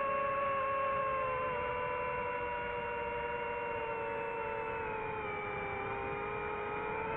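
FPV quadcopter's brushless motors whining, several close pitches from the motors spinning at slightly different speeds. The pitch sags slowly through the middle and starts climbing again near the end as the throttle changes.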